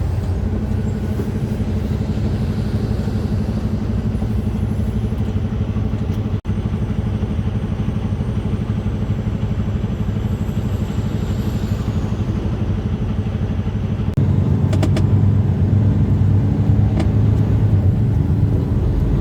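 Semi truck driving along, a steady low engine drone with road noise. It cuts out for an instant about six seconds in and runs louder from about fourteen seconds in, with a few light clicks.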